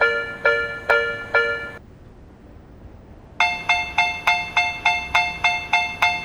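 Railroad level-crossing warning bell ringing in a steady clang-clang, about two strikes a second, stopping about two seconds in. After a pause of about a second and a half, a second crossing bell, higher-pitched and faster at about three strikes a second, starts ringing.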